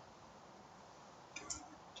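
Very quiet background hiss, with two faint clicks about one and a half seconds in.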